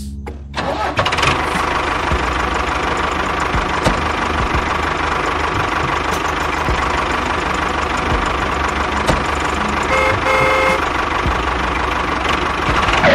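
A mini tractor's motor starts up just under a second in and runs steadily while towing. About ten seconds in there are two short horn toots.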